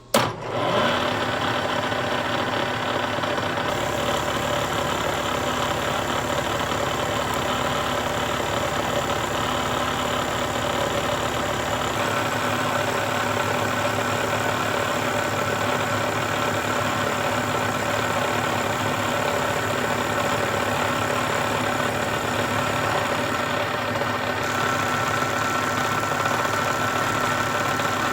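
Milling machine running steadily as its end mill cuts a slot deeper into a steel fixture piece, with a higher whine joining about twelve seconds in.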